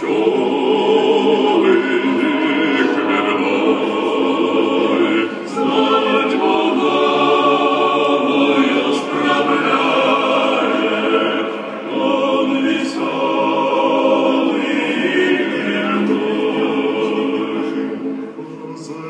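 Recorded opera, voices singing with accompaniment, played over a hi-fi system of wooden floor-standing and horn loudspeakers driven by a valve amplifier and heard in the room. The music drops in level briefly near the end.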